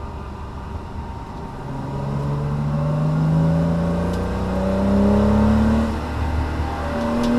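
A Porsche Cayman S 987 mk2's mid-mounted flat-six engine heard from inside the cabin, pulling hard under acceleration with its pitch rising steadily. About six seconds in the pitch drops with an upshift, then climbs again.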